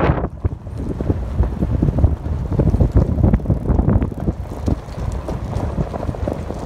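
Wind buffeting the microphone over the low rumble and irregular knocks of a Toyota 4Runner driving on a rough gravel road. A louder rush of wind stops abruptly at the very start.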